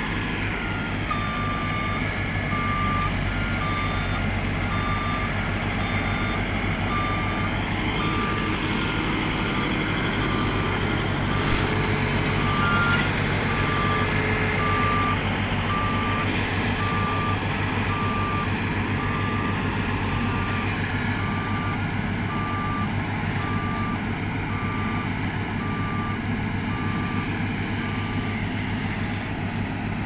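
Reversing alarm on asphalt-paving machinery beeping about once a second over the steady running of diesel engines. A second, higher-pitched alarm beeps along with it for the first several seconds, then stops.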